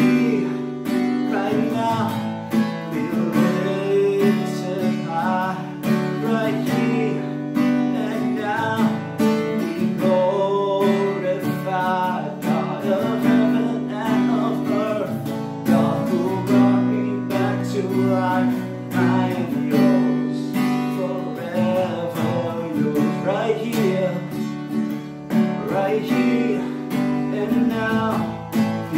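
A man singing a worship song, accompanying himself on a strummed Yamaha acoustic guitar.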